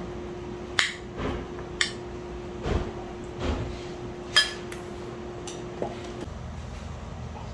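Metal spoons clinking and scraping against ceramic bowls during a meal: a handful of sharp clinks, one ringing briefly, with softer knocks between. A steady low hum underneath stops about six seconds in.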